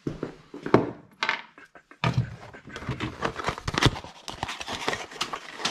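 Busy handling noise: a quick run of knocks, clicks and rattles, loudest as a sharp knock just under a second in, then denser rattling from about two seconds on.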